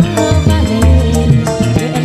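Live kecimol-style dangdut street-band music with a steady drum and bass beat and a melody line over it, and a woman singing into a microphone.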